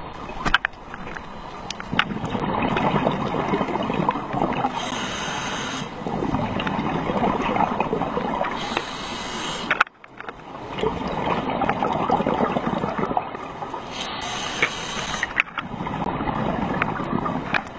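Underwater rushing and crackling heard through a camera's waterproof housing, with many small clicks and a few short hissing stretches every few seconds. The sound drops out briefly about ten seconds in.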